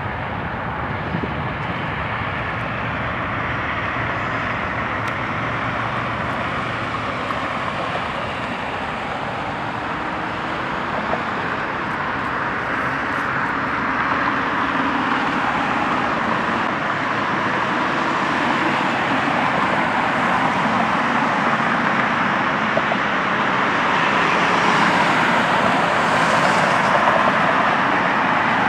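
Jet airliner engines running, a steady noise with no distinct events that grows slowly louder through the second half, with a faint high whine added near the end.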